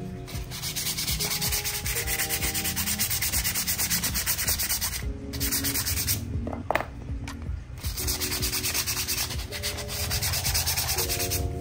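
Sandpaper rubbed by hand back and forth over brake parts, a rough scratching hiss in quick strokes that stops twice.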